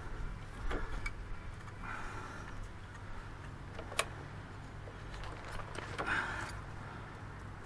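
Light metallic clicks and taps from a stainless motorcycle exhaust being shifted and pushed into place by hand at its joints and hanger, with one sharper tap about four seconds in.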